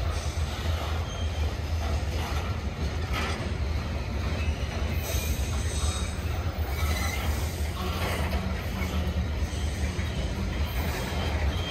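A train rolling past: a steady low rumble of the moving cars, with a few clunks and brief high wheel squeals.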